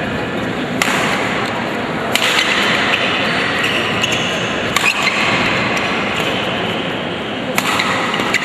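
Badminton rally: racket strings hitting the shuttlecock with sharp cracks about four times, a few seconds apart, over the steady murmur of spectators in a large hall.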